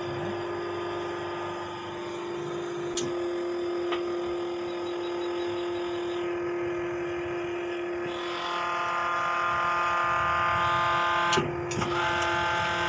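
Hydraulic hose crimping machine at work: its motor and pump hum steadily, with a few sharp clicks. From about eight seconds in, a stronger pitched whine builds as the machine crimps under load, broken by a couple of knocks near the end.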